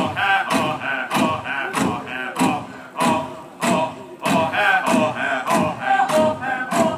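Massed voices of Naga performers singing a chant together, with held, wavering notes. A heavy thump lands about every 0.6 s, keeping a steady beat.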